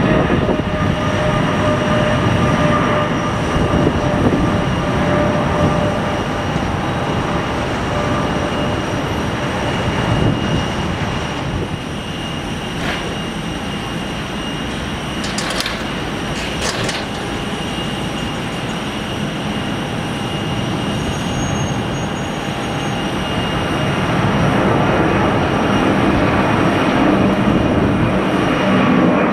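Jet noise from airliners climbing out after takeoff: a Boeing 777-200ER's engines fading with faint whining tones as it climbs away, then an Airbus A300-600 freighter's engines growing louder near the end as it climbs overhead. A few brief sharp clicks about halfway through.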